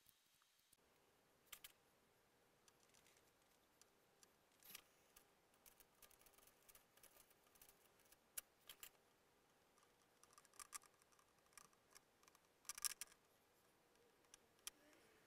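Near silence, with faint scattered clicks and crinkles from gloved hands laying fiberglass strips along the edges of coroplast landing skids; the loudest is a short cluster of clicks near the end.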